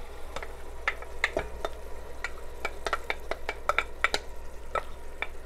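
A spoon scraping and clinking against a glass bowl as drained canned white beans are spooned into a pot: many short, irregular clinks, some ringing briefly, over a low sizzle from the pan.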